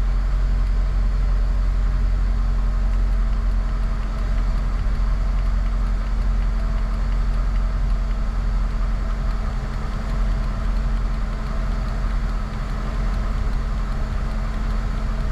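Lada Niva's four-cylinder engine idling steadily, with the freshly filled gearbox and transfer case turning over so the transfer case settles in.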